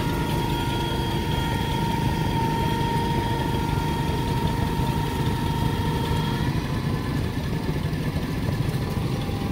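Tractor engine idling steadily with an even chugging. A thin high whine over it stops about two-thirds of the way through.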